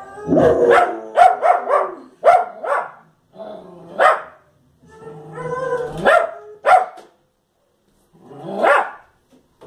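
Fox terrier barking sharply and repeatedly at a television. A quick run of barks comes in the first two seconds, then single barks spaced a second or so apart, then a pause before one last bark near the end.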